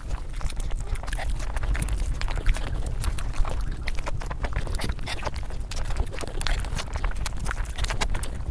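Close-miked eating: a person chewing a full mouthful of spicy fried rice and chicken with fingers, with a rapid run of wet mouth clicks and smacks over a low steady rumble.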